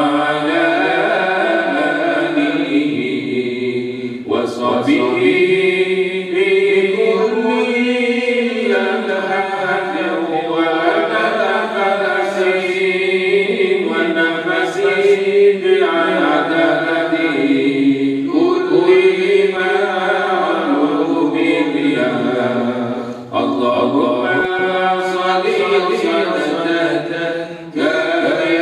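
A single man's voice reciting the Quran in Arabic in the melodic, drawn-out tajwid style, through a microphone and PA. The long phrases glide up and down and hold notes, with short breaks for breath about four seconds in and twice near the end.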